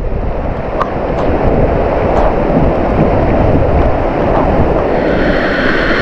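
Waterfall pouring down a rock face and splashing onto the rocks close by: a loud, steady rush of falling water.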